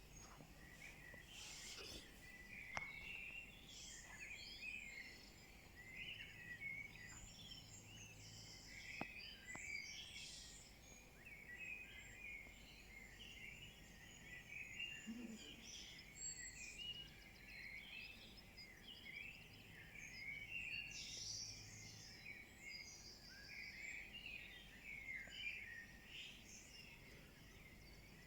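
Faint dawn chorus: many songbirds singing at once, a dense tangle of overlapping high chirps, trills and warbles.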